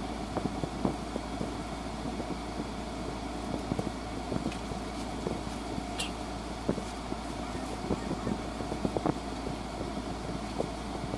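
Scissors snipping and a plastic courier mailer bag crinkling and tearing as it is cut open and unwrapped by hand. Small rustles and clicks come throughout, with one sharp snap about six seconds in, over a steady background hum.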